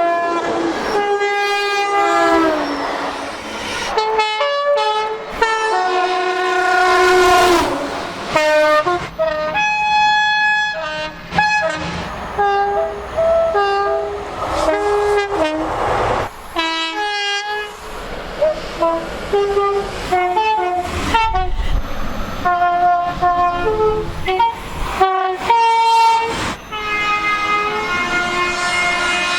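British train horns sounding in a long run of short and long blasts, many stepping between a higher and a lower tone, one sliding down in pitch, with abrupt breaks between the blasts.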